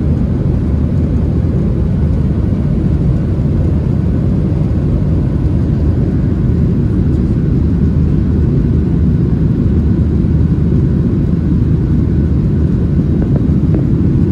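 Steady low drone of a Boeing 737-800 airliner in flight, heard inside the passenger cabin: jet engine and airflow noise with no change in level.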